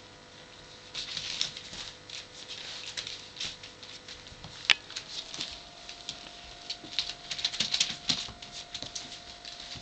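Young puppies moving and nuzzling about, making runs of small quick clicks and pattering sounds, with one sharper click about halfway.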